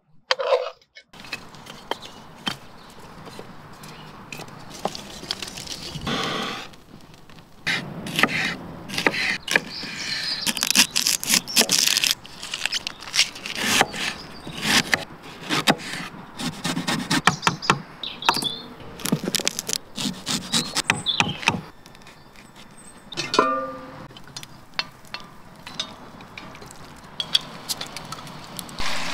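A knife chopping onion on a wooden cutting board in quick strokes, among other cooking-prep clicks and scrapes.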